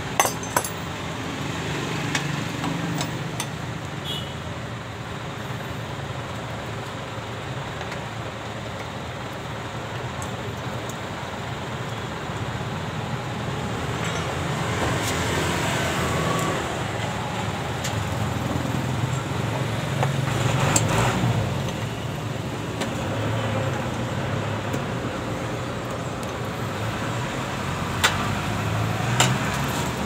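Steady rumble of passing road traffic, with a few sharp metal clicks near the start and near the end from a wrench working at the fuel injector of a 186F air-cooled diesel engine while the engine is stopped.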